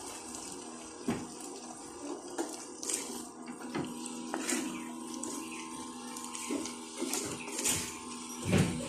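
Cuttlefish, tomato and chilli sizzling in a pot over medium heat while a wooden spoon stirs them. The spoon scrapes and knocks against the pot several times, loudest near the end.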